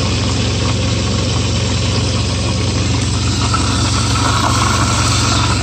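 Truck engine idling steadily, heard from inside the cab, with an even hiss over it.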